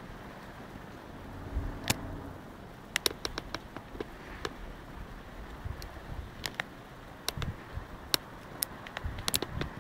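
Irregular sharp clicks and light knocks, several in quick clusters, over a steady low background hum.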